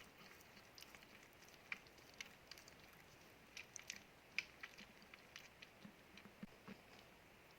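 Near silence in a pause between a sleeping chihuahua's snores, with a scatter of faint small clicks and mouth smacks, thickest about four seconds in.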